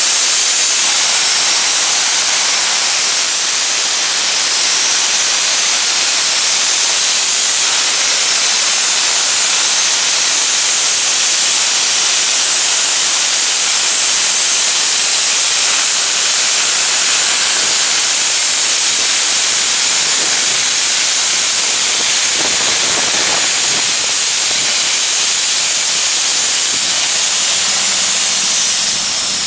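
4-4-0 steam locomotive No. 17 hissing loudly and steadily as steam vents from its open cylinder cocks while it rolls slowly out.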